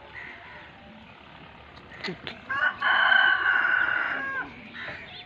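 A rooster crowing once: one long, high call of about two seconds, starting about halfway in and dropping in pitch as it ends.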